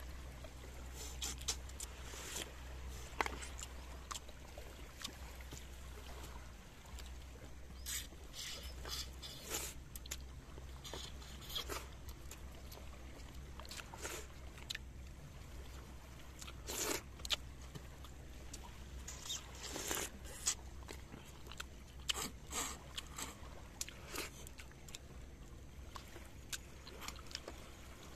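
Eating sounds: many short clicks and light clinks of hands picking cooked fish from plates and a wok, with chewing, over a steady low rumble that eases after about six seconds.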